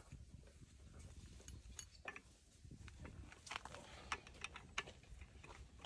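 Faint, scattered metal clicks and clinks as a steel cable's eye fitting and a shackle are handled and fitted onto the slotted steel bracket of a cable tree shaker.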